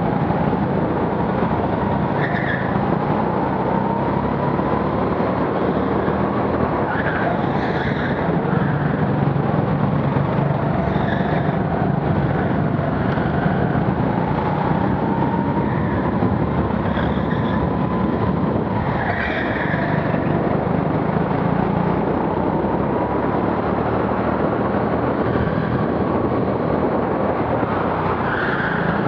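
Go-kart heard from the driver's seat, running at speed with its note rising and falling as it slows for corners and accelerates out. Short tyre squeals come several times as the kart corners.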